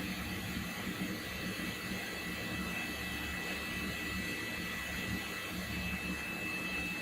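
Steam boiler's burner and its fan running steadily: a constant rumbling roar with a faint, steady high whine over it.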